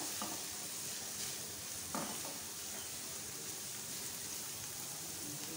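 Sliced onions, capsicum and green chillies sizzling gently in hot oil in a frying pan while a spatula stirs and scrapes them, with brief scrapes near the start and about two seconds in. It is a light sauté, the vegetables only softened, not browned.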